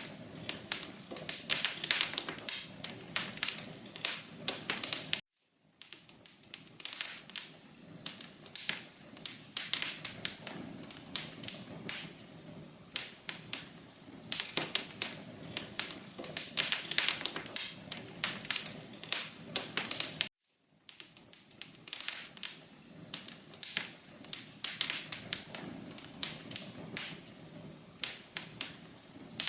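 Wood fire crackling in a fireplace: a dense, irregular run of sharp pops and snaps over a low hiss. It cuts out to silence for about half a second twice, about five seconds in and again about twenty seconds in.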